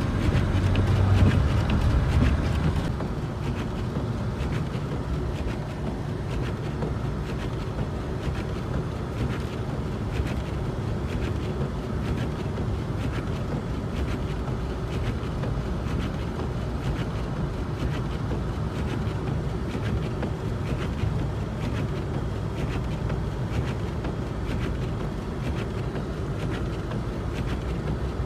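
Car driving on slushy, snow-covered roads: steady tyre and engine noise. It is louder and deeper for the first few seconds, then settles to an even level.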